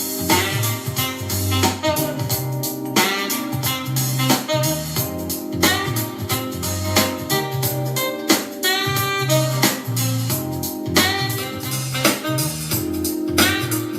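Instrumental jazz-style music with saxophone and guitar over a bass line and a steady drum beat, played back through a small JBL Bluetooth speaker under test.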